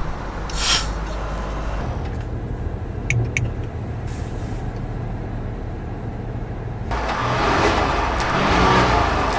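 Range Rover Sport engine and exhaust running with a steady low rumble, which grows louder from about seven seconds in. There is a short hiss about half a second in and two small clicks around three seconds.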